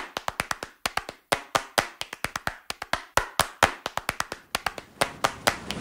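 Dry hand claps in a quick, uneven run with silence between them, the percussion intro of a hip-hop track; a hiss swells up near the end.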